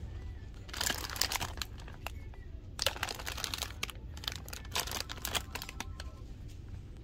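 Plastic wrapper of a packet of Oreo sandwich cookies crinkling as it is picked up, turned over and handled, in three bursts of crackling, over a steady low hum.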